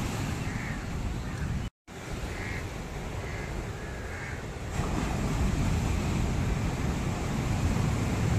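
Wind buffeting the microphone with surf behind it, growing stronger about five seconds in, while a bird calls harshly four or five times in the first half. The sound cuts out for a moment about two seconds in.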